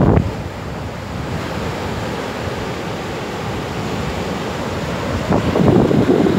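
Surf breaking on a sandy beach, a steady rushing wash, with wind buffeting the microphone. The noise swells louder near the end.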